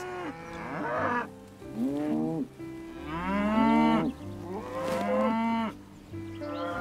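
Cattle mooing: four long moos, each about a second, rising and then falling in pitch.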